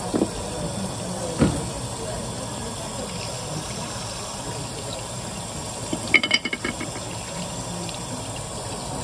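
Steady running tap water splashing over a wet cutting board, with a knock of a knife working a turban shell about a second and a half in and a brief run of metallic clinks about six seconds in.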